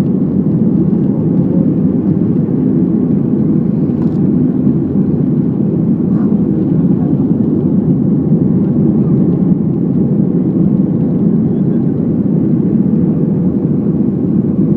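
Airliner cabin noise in flight: steady engine and airflow rumble, weighted low, with a faint constant hum above it.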